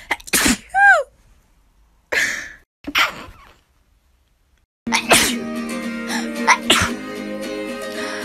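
A person sneezing several times in quick succession, one sneeze trailing off in a falling pitch. After a short silence, background music starts about five seconds in, and two more sneezes come over it.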